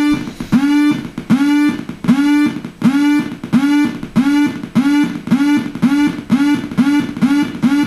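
Homemade Nibbler noise synthesizer playing a repeating electronic note pattern. Each note swoops up in pitch, then holds as a buzzy tone. The notes speed up from about one every three-quarters of a second to about two a second.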